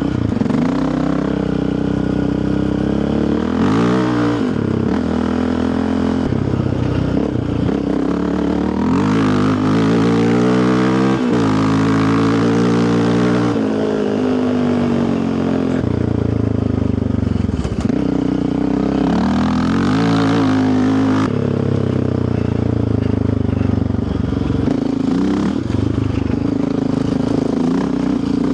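Yamaha Raptor 700R quad's single-cylinder four-stroke engine running under way on a trail, its pitch rising and falling again and again as the throttle opens and closes.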